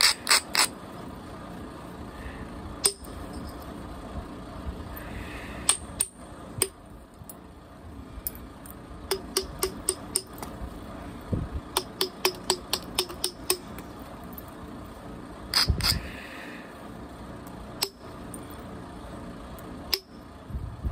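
Flintknapping: a billet striking the edge of a stone blank held on a leather pad, giving sharp clinking taps. They come singly and in quick runs of about two or three a second, with clusters near the start and about three-quarters of the way through.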